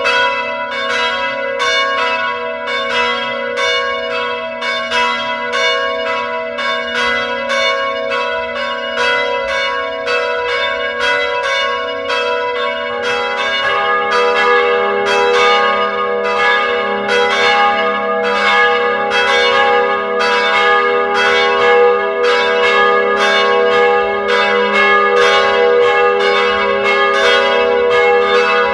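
A peal of bells ringing: steady, rapid strikes about two a second, each leaving a long ringing tone, with a different set of bell pitches coming in about halfway through.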